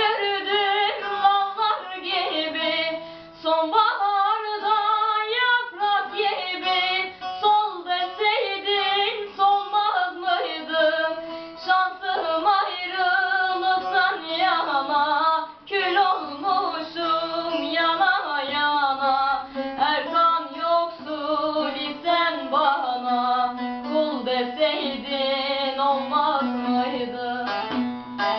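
A girl's voice singing a Turkish song, accompanied by plucked guitar.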